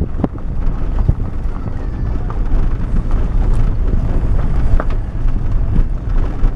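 Wind buffeting the microphone, a heavy low rumble, with scattered knocks from the camera being handled.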